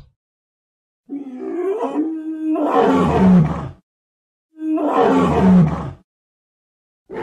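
Two made-up dinosaur roars for Gastonia, an armoured ankylosaur, with dead silence around them. The first comes about a second in and lasts nearly three seconds; the second is shorter. Each starts on a held, wavering tone and breaks into a rough growl, and a third roar begins at the very end.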